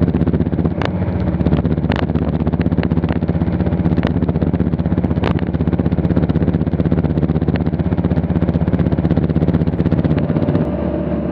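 Single-engine light aircraft's piston engine and propeller running steadily in flight, a loud even drone heard inside the cockpit, with a few short clicks. Near the end the engine note changes.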